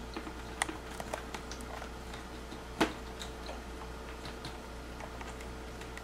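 Light plastic clicks and taps from a toilet seat's plastic hinge parts being handled and pushed together by hand, with one sharper click a little before the middle.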